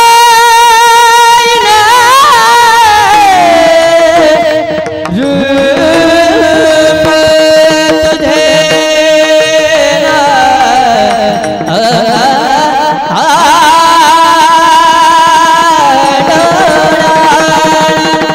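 A devotional Marathi abhang sung with instrumental accompaniment. The voice holds long, ornamented notes with vibrato and slides between pitches.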